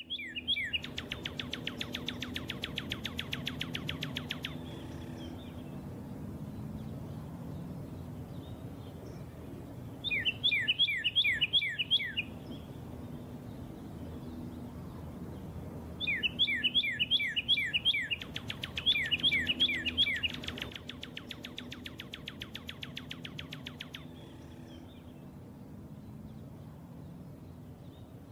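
Bird chirping in bursts of quick, repeated downward-sweeping notes, with a fast rattling trill at times, over a faint low steady background.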